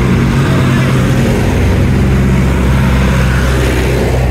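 Vintage tractor engine running as the tractor drives past close by, a steady low engine note.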